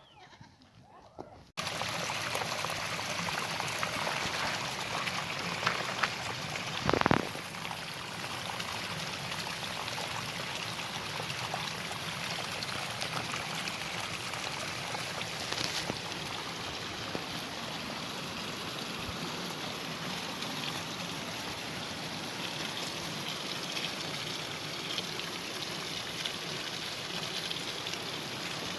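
Water of a stream flowing, a steady rushing and splashing that starts abruptly about a second and a half in. There is a brief knock at about seven seconds.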